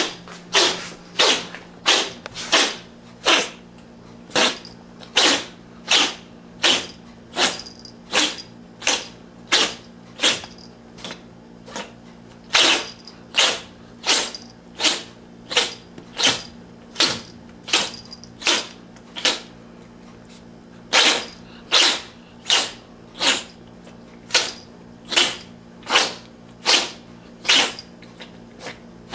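A domestic cat sneezing over and over in a long fit: short sharp sneezes about one every half second to second, with two brief pauses in the run.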